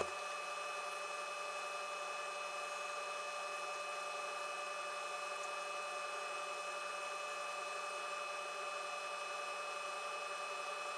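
Steady hiss with a faint, unchanging electrical whine in it, after a click at the very start; no distinct events.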